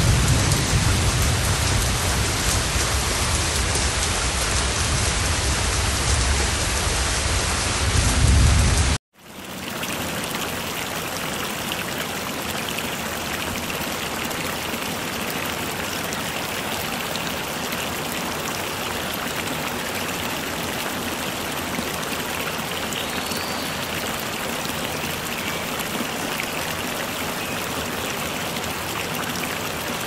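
Rain in two clips. For about nine seconds it is loud with a strong low rumble, then it cuts off abruptly, and a steadier, even rain hiss follows until the end.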